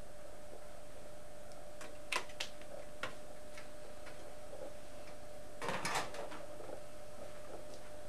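Light clicks and taps of a metal monitor back frame being handled, then a short clatter about six seconds in as it is lifted off the LCD panel and set down.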